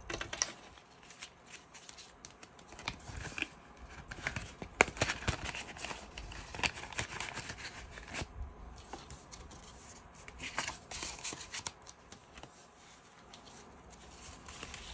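Paper $2 bills and a plastic binder pocket rustling and crinkling as they are handled, with scattered small clicks and taps; the sharpest tap comes about five seconds in.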